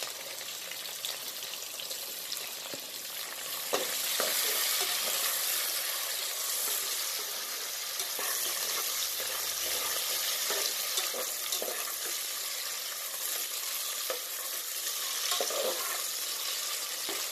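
Sliced onions sizzling as they fry in hot oil and ghee in an aluminium pressure cooker, stirred with a metal ladle that scrapes and knocks against the pot now and then. The sizzle gets louder about four seconds in.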